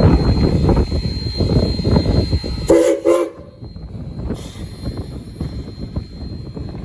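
A steam locomotive's chime whistle gives one short toot, about half a second long, nearly three seconds in, over a loud, uneven low rumble that drops away after the toot.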